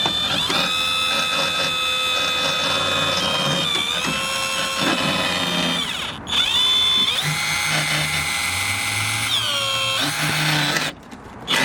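Power drill driving a screw: a steady motor whine for about six seconds, a brief stop, then a second run of about five seconds. Its pitch sags under load before it winds down.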